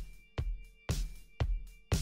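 Music with a steady drum beat, about two hits a second, over a few sustained synth-like notes.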